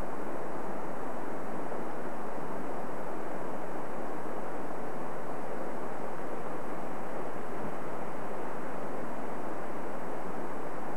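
A steady, even rushing noise with no breaks or changes.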